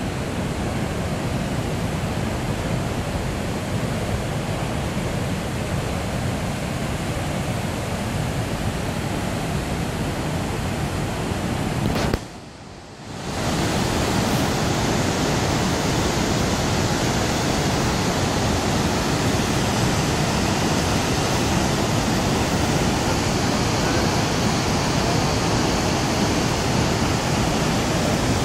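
Waterfall, its falling water making a steady, loud rushing noise that drops away for about a second some twelve seconds in, then resumes.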